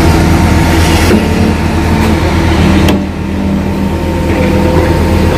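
Engine running at a steady idle, with a few sharp clicks over it.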